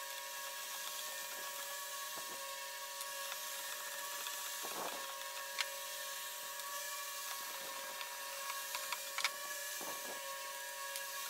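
A steady faint hum with several held tones, with a few light clicks and knocks of the plastic fuel tank being worked loose and lifted off the mini cultivator; the sharpest knock comes a little past halfway.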